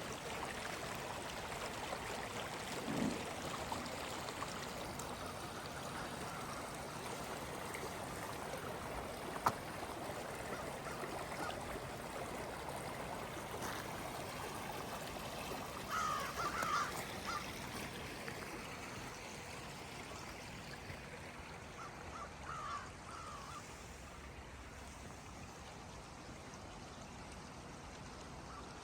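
Stream water flowing and trickling steadily, easing a little toward the end, with a bird giving a few short calls about halfway through and again a few seconds later.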